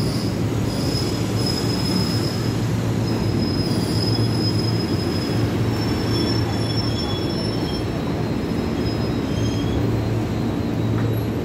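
Electric commuter train pulling into a platform and slowing to a stop, with thin high-pitched squeals coming and going over a steady low hum.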